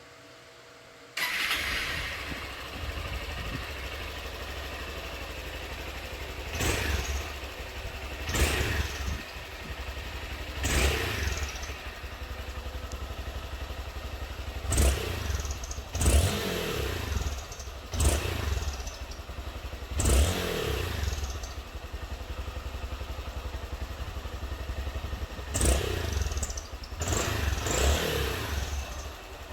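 Honda XRE 190 single-cylinder motorcycle engine starting about a second in, then idling with about nine quick throttle blips, each rev rising and falling back. The exhaust note is altered by a homemade conical washer fitted in the exhaust.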